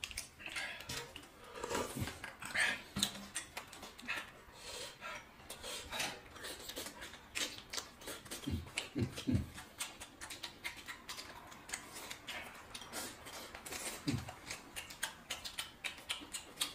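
Close-up eating noises: slurping, sucking and chewing with wet mouth clicks and smacks, and chopsticks tapping a plate now and then. A few short low thuds come about halfway through.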